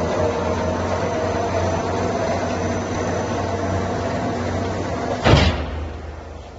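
Steel-plate embossing and straightening line running, its rollers working 3 mm steel plate with a steady machine hum and low motor tones. About five seconds in comes a single loud metallic bang, and the running noise is quieter afterwards.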